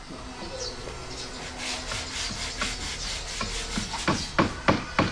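A hand tool rasping back and forth on wood in rhythmic strokes, about four a second, starting about a second and a half in. A few sharper, louder strokes come near the end.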